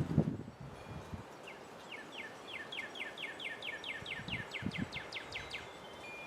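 Northern cardinal singing: a fast run of about twenty down-slurred whistled notes that speeds up, starting about a second and a half in. A sharp low thump at the very start, and a few softer thumps near the middle.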